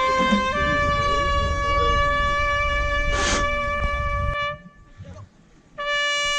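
Marching band brass holding a long sustained note, which steps up a little in pitch about half a second in and cuts off after about four seconds. A new held note comes in near the end, and there is a brief hiss about three seconds in.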